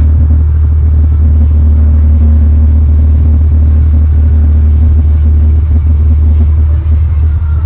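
Boat engine running steadily, a loud low drone.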